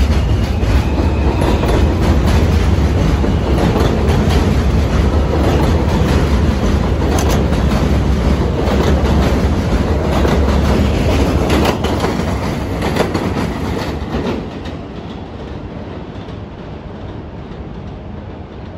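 New York City Subway R160A-1 train pulling out along elevated track and passing close by, a steady low rumble with wheels clattering over the rail joints. About fourteen seconds in the sound drops off as the last cars pass, then fades away into the distance.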